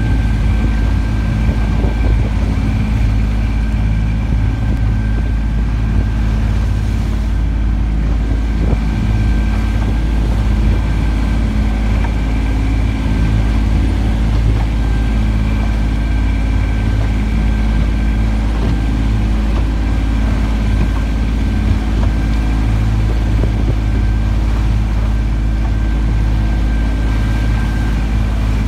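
Small open boat's engine running steadily, a low even hum with a faint steady high whine over it, heard from on board.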